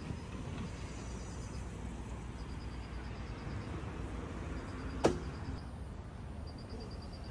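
Crickets chirping in short pulsed trills, repeated several times, over a steady low rumble. One sharp click about five seconds in.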